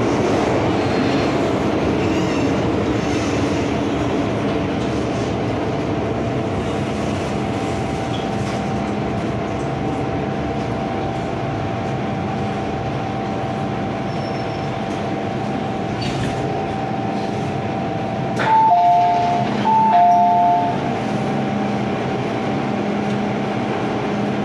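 MTR Island Line M-Train electric multiple unit running along the line, with steady rolling noise and a steady whine that joins after several seconds. Near the end an electronic two-note chime, high then low, sounds twice.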